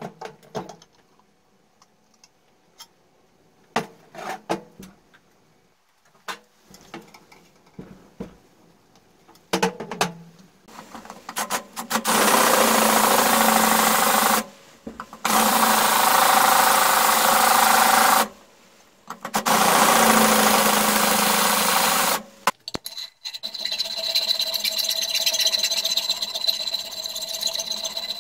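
Cordless drill boring into the hub of a lawnmower engine's finned flywheel: three runs of a few seconds each, starting and stopping abruptly. Metal parts clank against the bench before it, and near the end a different steady whir with a high tone comes in.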